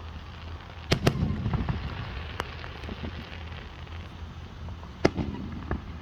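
Fireworks going off: two sharp bangs in quick succession about a second in, then scattered pops, and another loud bang with a smaller one after it near the end, all over a steady low hum.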